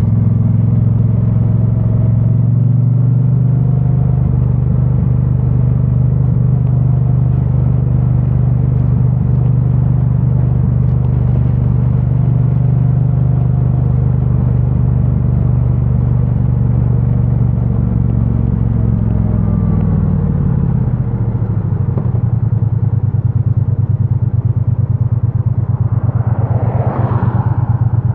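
Triumph Bonneville T100's 900 cc parallel-twin engine running on its stock exhaust at a steady cruise, then dropping in pitch about twenty seconds in as the bike slows and settling to a lower, steady note. Near the end a short rush of noise rises and fades over it.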